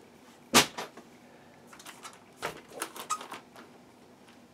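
A sharp knock about half a second in, then a few lighter clicks and taps: a plastic 1/10-scale RC truck being handled and set down.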